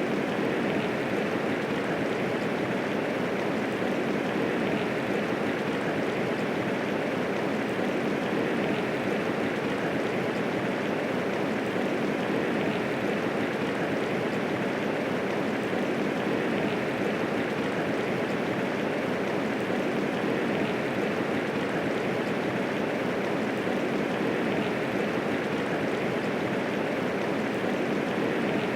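Steady medium rainfall, an even, unbroken hiss of many raindrops with no thunder.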